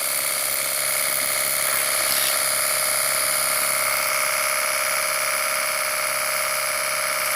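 Portable electric pressure washer running steadily, its motor and pump giving a steady whine over a hiss.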